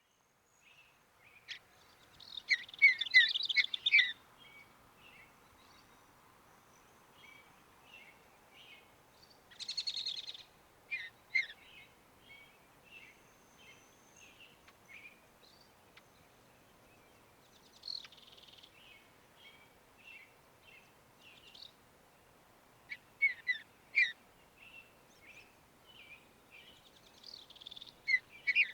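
Mountain bluebird giving short chirping and warbled notes in scattered groups. The loudest run comes about two to four seconds in, with a brief buzzy note a little later.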